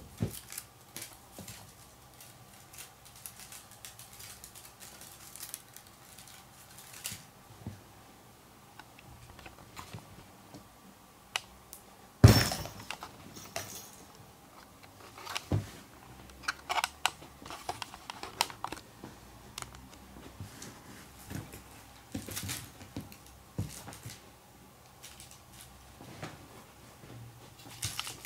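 Cat playing with a feather wand toy on a bedspread: scattered rustles and light clicks from the toy and the cat's paws on the bedding, with one loud sharp knock about twelve seconds in and a smaller one a few seconds later.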